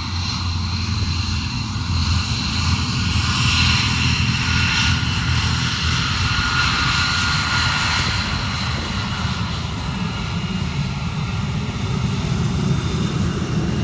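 Airplane engine running, a steady low drone with several high steady tones over it.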